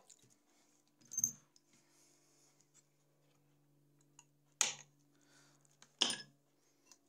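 Small metal tools being handled over a circuit board at a workbench: three sharp clicks and taps, about a second in, at four and a half seconds and at six seconds, over a faint steady low hum.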